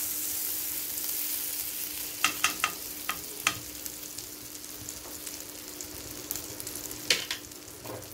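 Butter melting and sizzling in a hot nonstick pan, a steady hiss that slowly eases. A few sharp clicks come about two to three and a half seconds in and again near the end.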